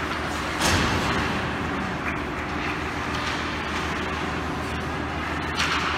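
Ice hockey rink game noise: a steady noisy rumble with a low hum, broken by a sharp knock about a second in and another near the end.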